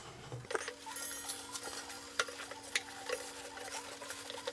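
Paper towel rustling and crinkling with small scratchy clicks as it is pressed and stuffed around coiled clock chains. A faint steady hum comes in about half a second in.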